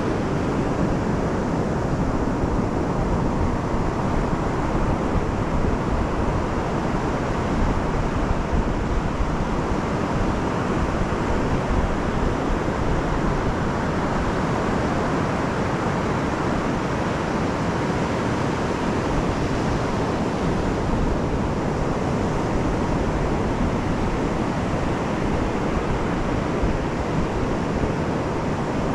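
Pacific Ocean surf breaking and washing up a flat sand beach: a steady, continuous rush of waves.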